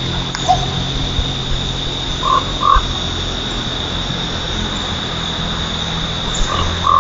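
Red-breasted nuthatch giving short nasal calls, a pair about two and a half seconds in and more near the end, over a steady high whine and a low hum.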